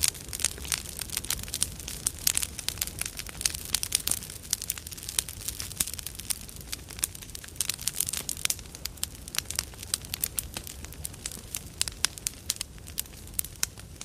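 Large campfire burning: a dense, irregular crackling and popping over a low, steady rumble of flames.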